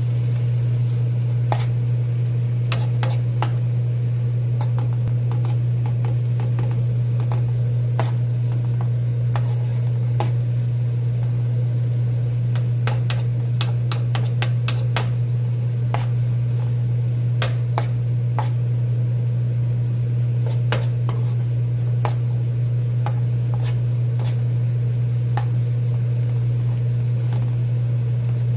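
A metal spoon stirring and scraping dried anchovies and green chili peppers in a nonstick frying pan, with sizzling and many scattered sharp clicks of the spoon on the pan. Under it runs a steady low hum, the loudest sound throughout.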